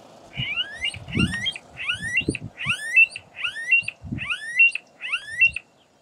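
Smooth-billed ani calling: a series of about eight rising, whining whistles, a little faster than one a second, each sliding steeply upward and ending on a short held note. Low thumps sound under several of the calls.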